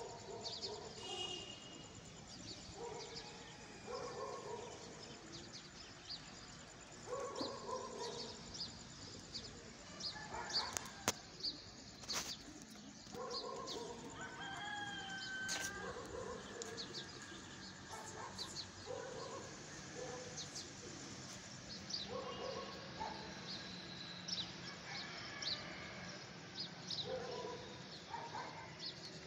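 Domestic chickens calling, with a rooster crowing, in short repeated phrases every second or two. Small birds chirp high over them, and a few sharp clicks sound near the middle.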